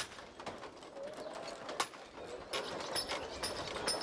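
Work on a stone building site with hand-operated hoisting gear: scattered knocks and clicks, then from about halfway a regular series of bright, ringing taps, roughly two a second.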